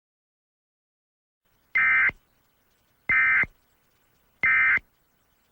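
Emergency Alert System end-of-message signal: three short, identical bursts of buzzing digital data tones, about a second and a half apart, marking the close of the alert.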